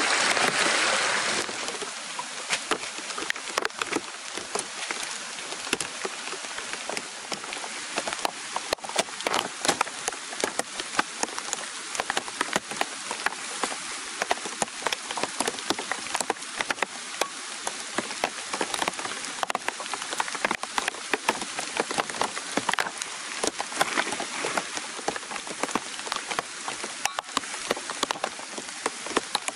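Rain-swollen muddy stream rushing over rocks for about the first second and a half, then steady rain falling in woodland, a hiss dotted with many sharp drop ticks on leaves.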